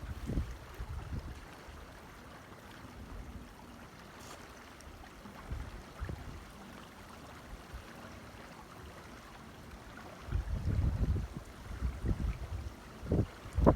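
Mountain creek water rushing and splashing steadily, with low rumbling bumps on the microphone that grow heavier from about ten seconds in.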